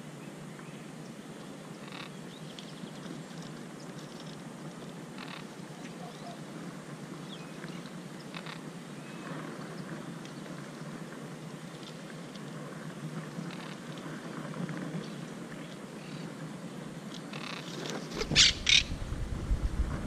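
Monk parakeets calling faintly from around their nest, with scattered short chirps. Near the end come two loud, sharp knocks close to the microphone with a deep rumble.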